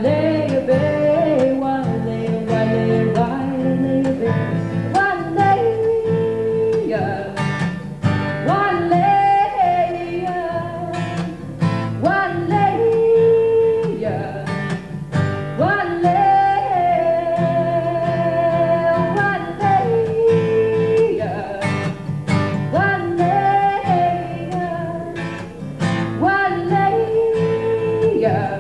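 A woman singing long held, sliding notes over strummed acoustic guitar in a folk song.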